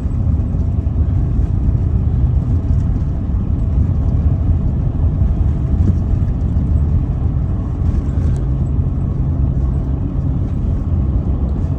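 Chevrolet car driving, heard from inside the cabin: a steady low rumble of engine and tyre road noise.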